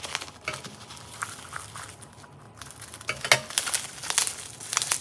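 Plastic bubble wrap crinkling and crackling in irregular bursts as it is snipped with scissors and pulled off a small glass, busier and louder in the second half.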